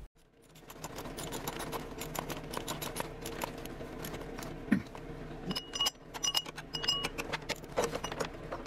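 Metal hand tools clicking and clinking as bolts are worked in the engine bay. There are many sharp clicks, with a quick run of evenly spaced metallic ticks about two-thirds of the way through.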